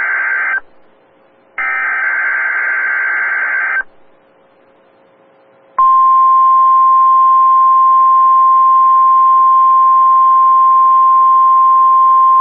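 NOAA Weather Radio / Emergency Alert System weekly test signal: the end of one SAME digital header burst, then a second header burst about a second later lasting about two seconds. About six seconds in, the steady 1050 Hz warning alarm tone starts and holds.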